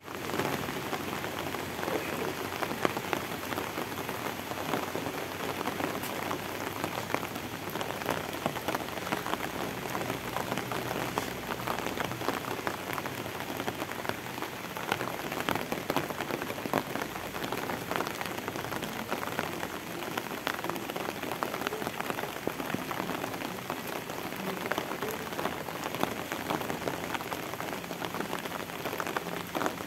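Steady rain falling: an even hiss with a dense patter of individual drops.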